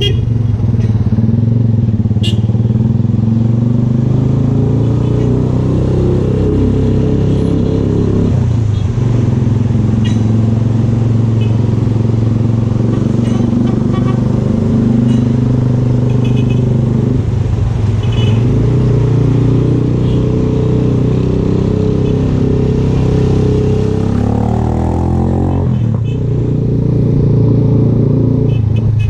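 VLR200 motorcycle engine with an aftermarket Devil exhaust, running steadily while riding. Its note dips and climbs back three times, about a third, two thirds and near the end of the way through.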